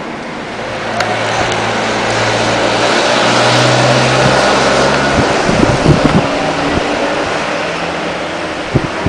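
A car passing, its engine and tyre noise swelling to a peak and fading, over wind buffeting the microphone with a few sharp thumps.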